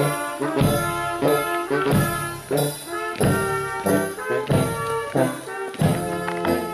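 Brass band playing a march: trumpets and trombones over a steady beat about twice a second.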